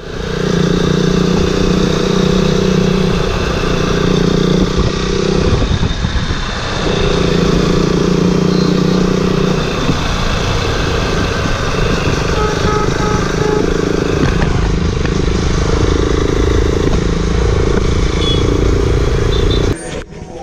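Motorcycle engine running while riding in traffic, a steady drone over a noisy rush of road sound. The pitch holds for a few seconds at a time and shifts several times, as the revs change.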